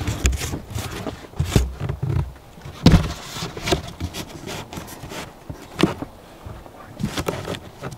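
Cardboard box being cut and handled to open a slit: irregular scraping and crackling of the cardboard mixed with dull knocks and thuds, the loudest knock about three seconds in.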